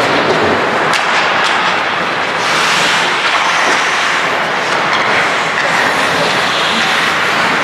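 Ice hockey game on a rink: a steady hiss of skates scraping the ice, with a few sharp clacks of sticks or puck about a second in.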